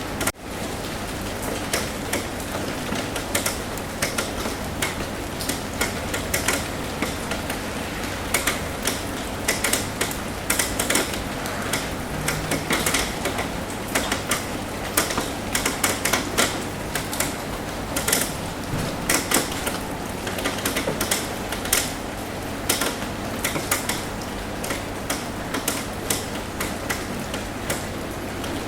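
Rain on a roof: a steady patter with many irregular, sharp taps of drops striking the roof, several a second, and a brief dip in the sound right at the start.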